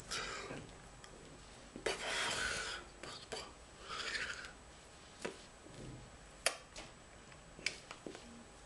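Three short bursts of rubbing and rustling, followed by a few sharp clicks in the second half: hands and sweater sleeves brushing against a knit sweater while signing.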